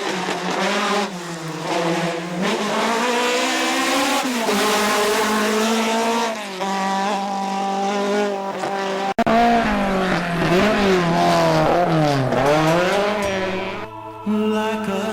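Ford Escort Mk2 race car's Cosworth BDA twin-cam four-cylinder engine at high revs: the pitch climbs and drops again and again through the gear changes, with several sharp dips in quick succession about two thirds of the way in. Music fades in near the end.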